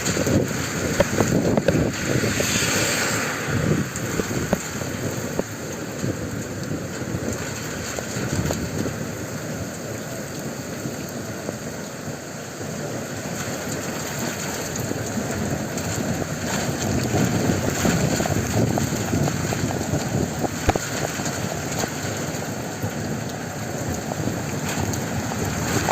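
Rain pouring down steadily, a dense crackling hiss of drops.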